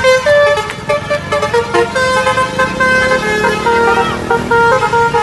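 Bus basuri melody horns playing a tune: loud sustained notes changing pitch in quick steps, several tones sounding together, over a low rumble.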